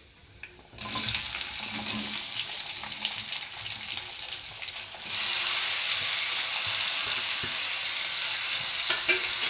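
Amla (Indian gooseberries) sizzling in hot oil with a tempering of mustard seeds, fenugreek, fennel and coriander as they are stirred in the pan. The sizzle starts about a second in and gets louder about five seconds in.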